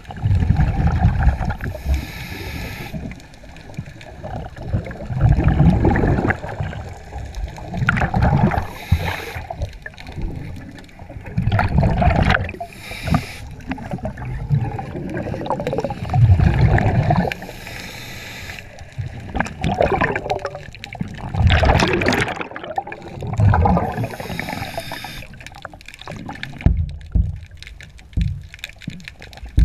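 A diver breathing through a regulator underwater: a short hiss on each inhale about every five or six seconds, and a low gurgling rush of exhaled bubbles between them.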